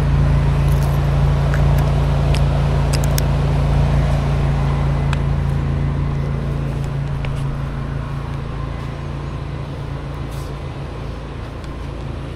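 Pressure washer's engine running steadily at a constant speed, a low even hum that grows gradually quieter through the second half.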